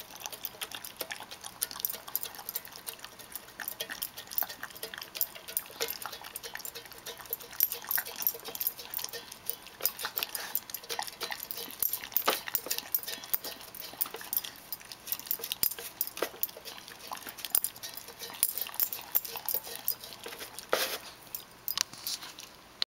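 Shiba Inu eating wet, rehydrated dog food from a stainless steel bowl: a quick, irregular run of wet licking and smacking sounds, with the tongue clicking against the metal bowl.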